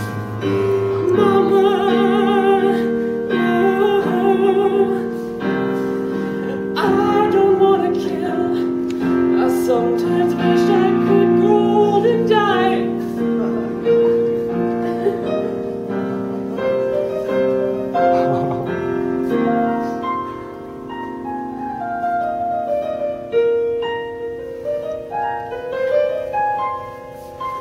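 Piano accompaniment from a stage-musical number, with a voice singing over it for roughly the first half. Later the piano carries on alone, with notes stepping upward near the end.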